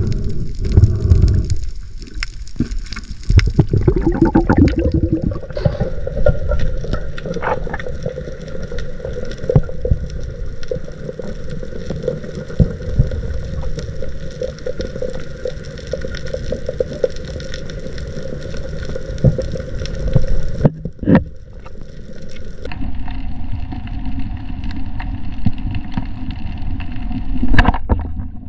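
An engine running steadily over splashing, gurgling water noise; its pitch changes to a new steady note about three-quarters of the way through.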